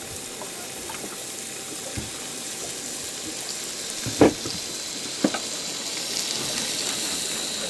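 A steady hiss of water, with a few short knocks, the loudest about four seconds in.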